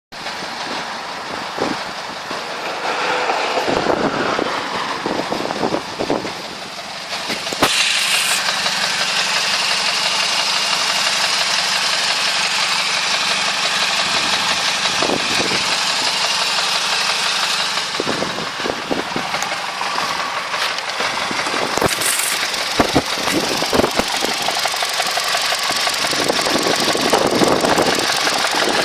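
Vauxhall Astra 2.2 Z22SE four-cylinder petrol engine running with a repeated knock that nobody has been able to pin down, although the engine has been rebuilt with new top and bottom timing chains, big-end bearings, piston rings and crankshaft. It gets louder about eight seconds in.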